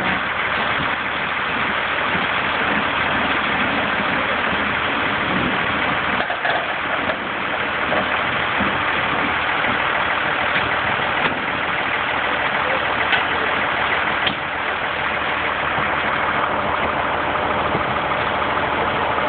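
Heavy Scania recovery truck's diesel engine running steadily while its crane lifts, with a few faint knocks.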